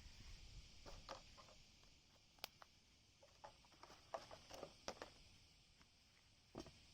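Faint, scattered light clicks and scrapes over near silence, with one sharp tick about two and a half seconds in and a cluster of clicks around four to five seconds in.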